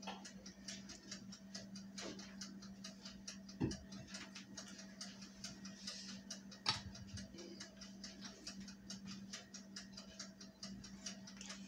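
Faint, rapid, even ticking of a toaster oven's mechanical dial timer as it runs down, over a steady low hum, with two soft knocks a few seconds apart.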